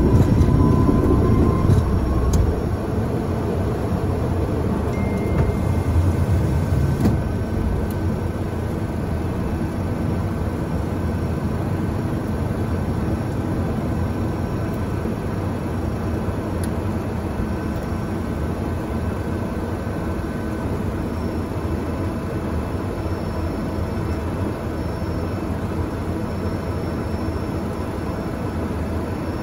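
A small airplane's engines and rushing airflow heard inside the cockpit during takeoff, a steady loud noise. A heavy rumble from the wheels on the runway fades about two seconds in as the plane lifts off, and the steady climb noise carries on.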